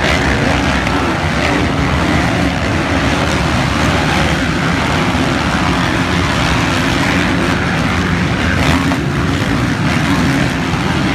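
A pack of motocross dirt bikes racing past, several engines revving together in one loud, unbroken drone.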